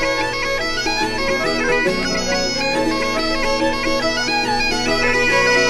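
Bagpipe music: a quick melody over a steady, unchanging drone.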